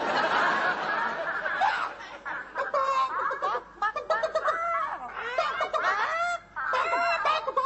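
Laughter for the first couple of seconds, then a voice clucking and squawking like a chicken in place of speech, in short arched calls that come again and again.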